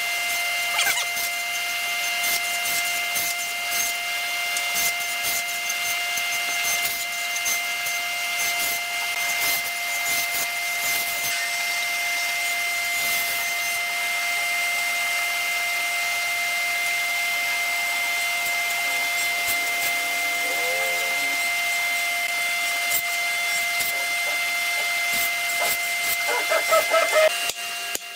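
Electric power tool running steadily with a constant high whine over a hiss, then switched off near the end.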